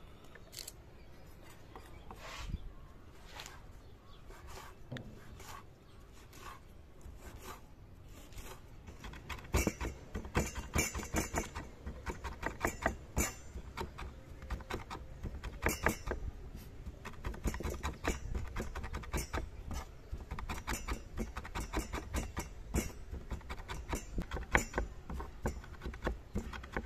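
Steel chef's knife chopping fresh rosemary on a wooden cutting board: a few scattered knocks of blade on wood at first, then, about nine seconds in, fast, uneven chopping knocks that keep up to the end.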